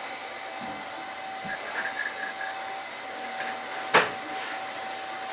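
Running noise of a Toyama Chiho Railway 14760 series electric train heard from its leading car: a steady hiss with a constant whining tone, and a single sharp click about four seconds in.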